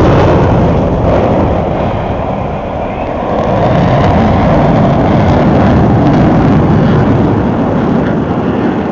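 F-16 fighter jet flying past, a loud jet rumble that dips about two and a half seconds in, swells again, and fades near the end.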